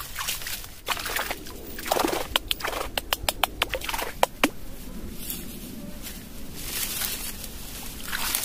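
Rustling of reeds and thin stems being pushed aside and broken by hand, with a quick run of about a dozen sharp snaps about two seconds in.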